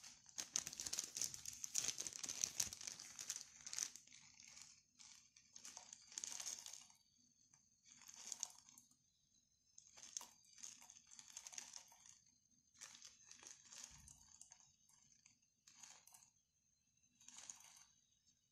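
Thin plastic bag crinkling in short, repeated bursts while it is handled and tipped so that emulsifier flakes are shaken out of it. The loudest bursts come in the first few seconds.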